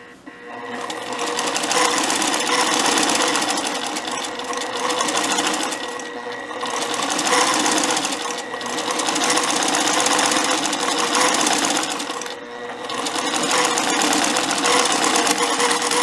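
Sewing machine stitching a straight seam at speed, starting just after the start, easing off briefly three times (about six, eight and a half and twelve and a half seconds in) and running on through to the end.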